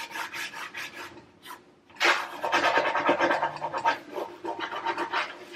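Fingernail scratching and scrubbing at dirt embedded in a wooden surface, in rapid repeated scraping strokes. They are fainter at first with a short pause, then louder from about two seconds in.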